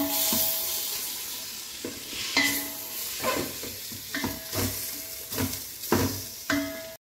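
Onion, tomato and spice masala sizzling in a stainless-steel pot while a wooden spatula stirs and scrapes through it. The spatula knocks against the pot roughly every half second to a second, the steel ringing briefly after some knocks, and the sound cuts off abruptly just before the end.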